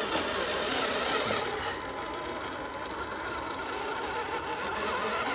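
Radio-controlled Tamiya King Hauler lorry driving on off-road wheels, its electric motor and gearbox giving a steady whir.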